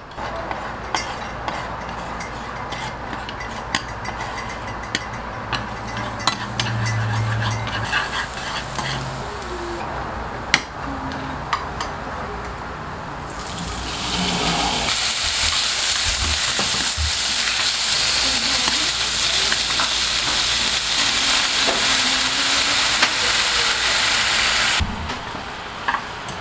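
Beef and green beans being stir-fried in a hot pan: a spatula clicking and scraping against the pan over a low sizzle, then a much louder, steady sizzle about halfway through that stops abruptly near the end.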